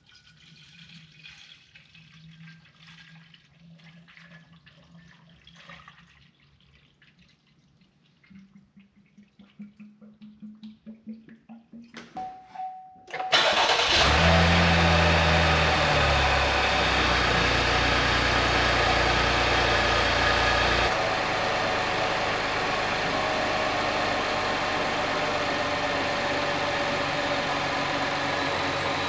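Chevy Blazer's 3.6-litre V6 is started after a thermostat replacement and coolant top-off. About thirteen seconds in it fires, flares up briefly, then settles into a steady idle that drops a little about eight seconds later. Before that there are only faint handling sounds.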